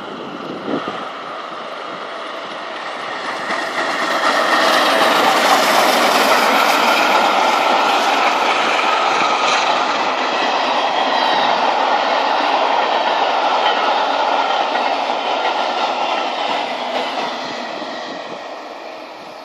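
A train passing: wheel and rail noise that builds about three seconds in, stays loud for ten seconds or so, then fades away.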